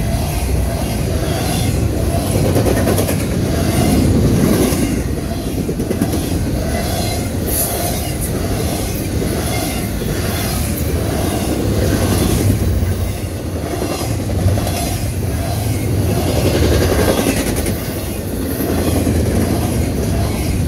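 CSX double-stack container train rolling past at close range: a loud, steady rumble of steel wheels on rail that swells and eases every few seconds as the well cars and their wheel trucks go by.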